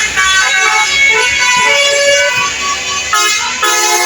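Telolet bus horn: a multi-tone air horn sounding a run of changing notes, then a louder held chord starting near the end.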